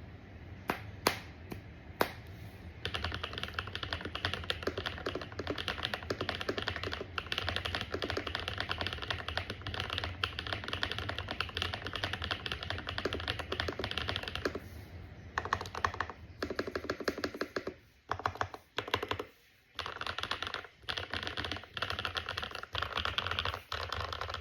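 Mechanical keyboard being typed on: a few single key presses, then fast continuous typing for about ten seconds, then several short bursts of typing separated by pauses.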